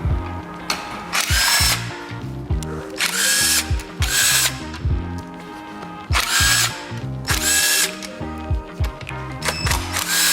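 Cordless power tool, a drill or driver, run in about six short bursts of motor whine, each roughly half a second long, over background music with a steady bass beat.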